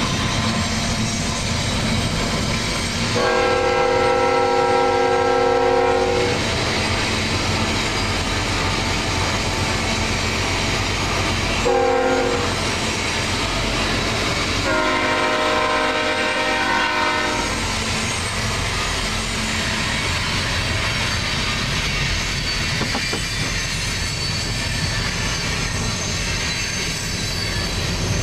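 Freight locomotive air horn sounding for a grade crossing: a long chord of several notes about three seconds in, a short one near twelve seconds, then another long one, over the steady rumble of the passing train. In the last part, freight cars roll by with wheels clacking on the rails.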